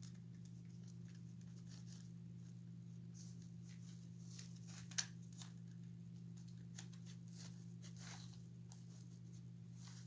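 Faint rustling and scraping of a small cloth shirt being handled and pulled onto a toy figure, with a sharp tick about five seconds in, over a steady low hum.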